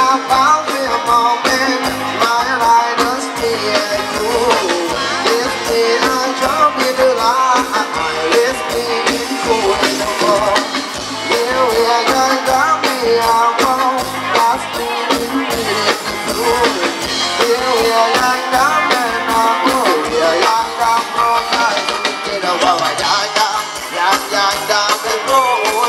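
Live Thai ramwong dance music from a band: a steady, regular drum beat under a wavering melody line, with some singing, playing without a break.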